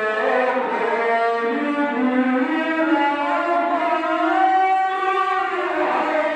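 A man's voice in melodic Quran recitation (mujawwad style), amplified through a microphone, holding one long melismatic vowel. The pitch glides slowly, rising to a peak a little past the middle and falling back near the end.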